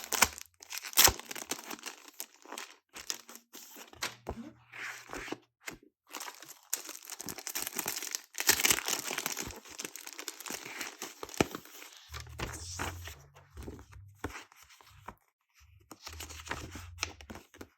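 Plastic packaging crinkling and tearing in irregular bursts as planner accessories are unwrapped by hand. Low bass guitar notes from another room sound faintly at a few points.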